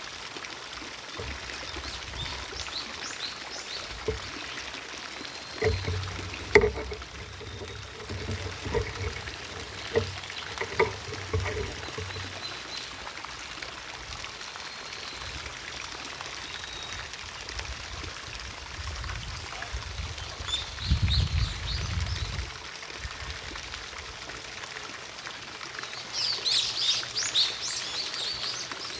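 Garden fountain splashing steadily in the distance while small birds chirp, with a quick run of chirps near the end. A few low rumbles and a sharp knock come through now and then.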